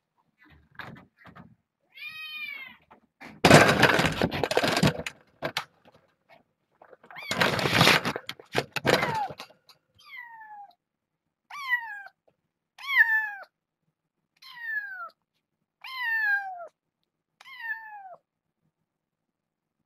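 A kitten meowing repeatedly, about every second and a half, each meow falling in pitch: a lone kitten crying after its carer has left the room. Two loud rushing noises, each a second or two long, come before the run of meows.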